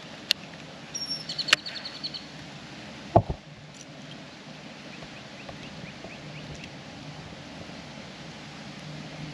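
Steady wind noise with a few sharp clicks around one to two seconds in and a single low thump about three seconds in.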